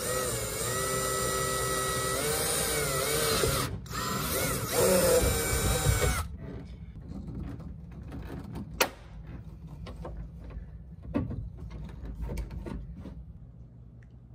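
Cordless drill running, its motor whine shifting in pitch as the bit cuts through the plastic seat's mounting holes. It stops briefly about four seconds in, then bites harder until about six seconds. After that, quieter handling with two sharp snaps about nine and eleven seconds in as a rivet tool sets the rivets.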